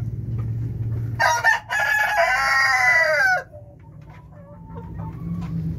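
A rooster crows once about a second in: a short first note, then a long drawn-out call that rises and falls in pitch and cuts off sharply. Hens cluck softly after it, over a low steady hum.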